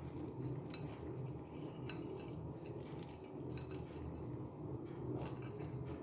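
Faint, scattered clinks and taps from a serving dish and a steel spoon while nimko is sprinkled over chana chaat, over a steady low hum.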